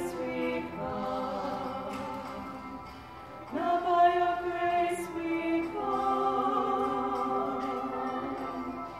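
Two women singing a duet, holding long notes. A new phrase comes in strongly about three and a half seconds in, then a long sustained note is held.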